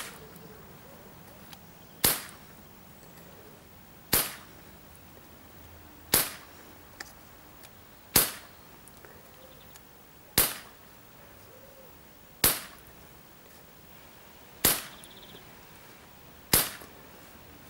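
Weihrauch HW40 (Beeman P3) pneumatic air pistol firing 5.5 mm pellets shot after shot, a sharp report about every two seconds: a string of shots fired over a chronograph to measure pellet velocity.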